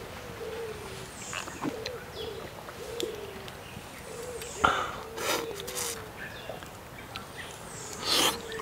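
A bird calling with a steady run of short low notes, about two a second, with two brief louder noisy sounds, one about midway and one near the end.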